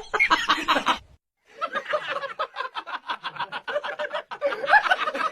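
Rapid snickering laughter, a long run of short breathy pulses about five or six a second, starting about a second and a half in after a brief gap; a short burst of voice comes before the gap.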